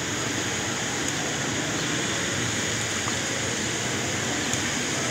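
Steady, even outdoor background noise with no single sound standing out, and a faint steady high tone running through it.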